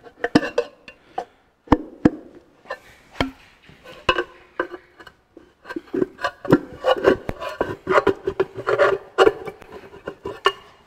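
Screwdriver blade scraping and clicking against the edge of a Ferguson 23C diesel's rocker cover as it is pried up, the cover stuck down on its gasket. Irregular sharp taps and scrapes, busier after a few seconds.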